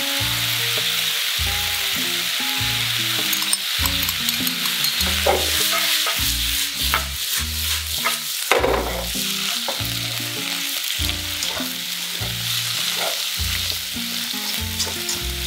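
Cabbage, onion and sliced pork stir-frying in a hot wok: a steady sizzle with the spatula scraping and stirring through the food. About eight seconds in, the wok is tossed, giving the loudest clatter.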